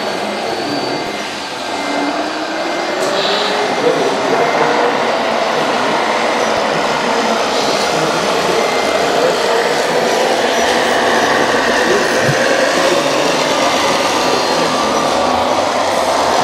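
Radio-controlled model Liebherr wheel loader running, a steady whirring of small motors with a faint whine that rises and falls in pitch as it drives and moves its bucket.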